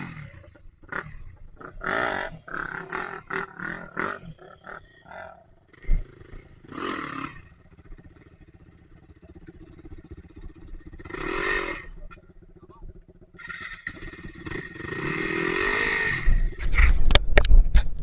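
Dirt bike engine revved in repeated throttle bursts, its pitch rising and falling with each blip, with several quieter pauses between. Near the end a few sharp knocks and a low rumble.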